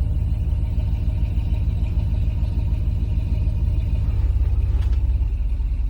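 Off-road vehicle engine running steadily, a continuous low rumble.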